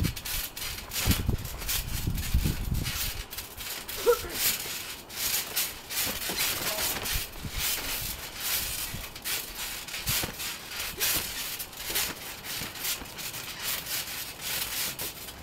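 Irregular dull thumps and rustling from people moving on a trampoline mat and a basketball bouncing on it, with a short high vocal cry about four seconds in.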